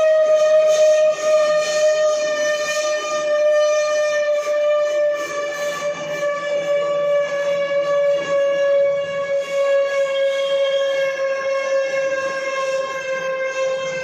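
Automatic bar threading machine running with a steady high whine that sinks slowly in pitch.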